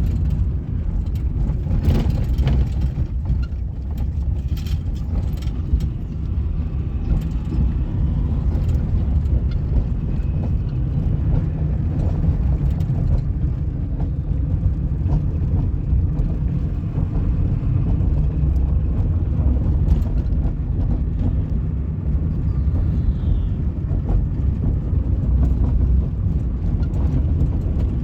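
Cabin noise inside a moving 1998 Suzuki Baleno: a steady low road and engine rumble, with scattered light ticks and clicks from the interior. The knocking rattle is gone with the dashboard stripped out, leaving only a light squeak.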